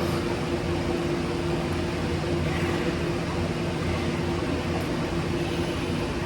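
Steady mechanical hum and hiss of room ventilation running, with a constant low tone.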